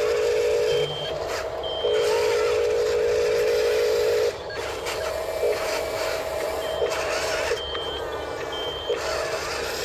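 Toy RC construction machines working: a loud mechanical buzz in two stretches that start and stop abruptly, and short high-pitched beeps repeating about once a second.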